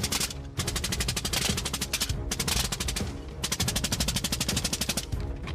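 M2 Browning .50 caliber machine gun firing long rapid bursts of about ten shots a second, with short breaks about half a second, two, three and a half and five seconds in. Background music plays underneath.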